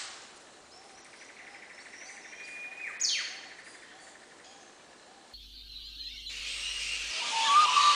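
Bird-like calls on the soundtrack: a buzzy trill, then a sharp falling whistle. About five seconds in, the sound cuts abruptly to a hiss that widens and grows louder, with faint tones near the end.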